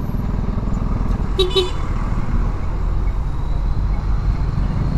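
Motorcycle engine running with a steady low rumble while riding in traffic. A brief vehicle horn toot sounds about one and a half seconds in.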